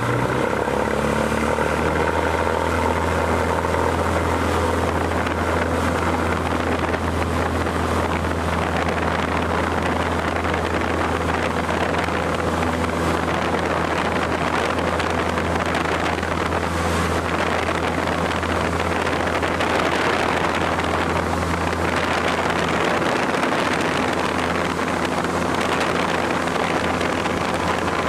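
Cessna 150's four-cylinder Continental O-200 engine and propeller droning steadily at takeoff power through the takeoff roll and lift-off, heard from inside the cockpit.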